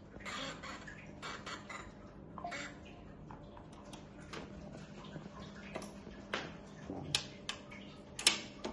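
Scattered light metallic clicks and taps of tools and parts being handled during bicycle headset and fork work, with a few brief scrapes early on and a sharper click near the end.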